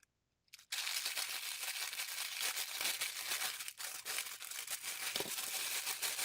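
Plastic packaging crinkling steadily as package contents are handled, starting just under a second in.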